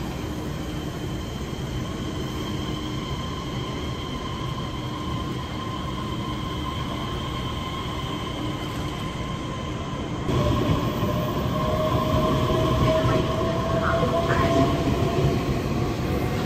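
TRA EMU3000 electric multiple unit at an underground platform, first standing with a steady hum. About ten seconds in it gets suddenly louder as the train pulls away, its electric traction drive giving a whine that rises slowly in pitch as it gathers speed.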